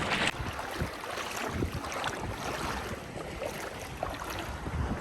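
Water sloshing and lapping with wind buffeting the microphone, steady with a few faint splashes.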